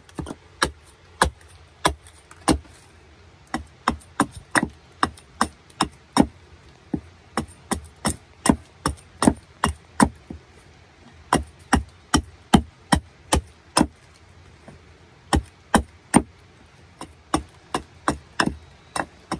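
Wood being struck and split in repeated sharp knocks, about two to three a second, in runs with brief pauses. Wet firewood is being cut down to reach its dry core for a fire in the rain.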